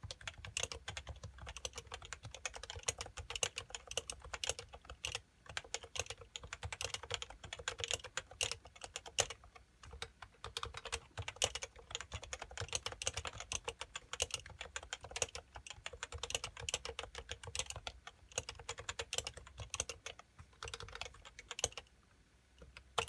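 Fast, continuous typing on a Happy Hacking Keyboard Professional 2 with uniform 45 g Topre switches: a dense run of keystrokes that stops near the end.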